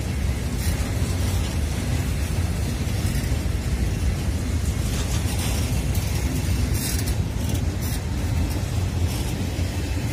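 Railway tank wagons of a fuel train rolling past on the track, with a few sharp clicks from the wheels, under a heavy steady rumble of wind on the microphone.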